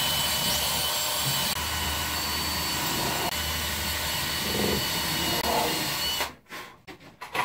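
Cordless drill with a 2.5 mm bit running steadily, pre-drilling pilot holes in wood for screws. It stops about six seconds in, followed by a few short knocks.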